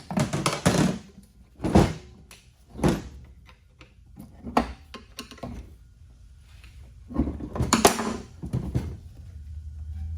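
Heavy parts of a transfer case knocking and clunking as the split case is worked apart on the bench: scattered single thunks, with a cluster of knocks a little past halfway.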